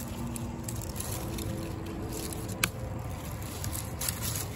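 Jack Be Little mini pumpkin being pulled and twisted off its vine, with one sharp snap about two and a half seconds in as it breaks free. It comes away with resistance because it is not fully ripe, tearing off without its stem. Steady low background noise throughout.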